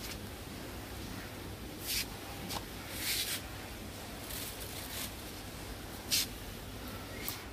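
A steady low hum with several brief, hissy rustles scattered through, the loudest about six seconds in.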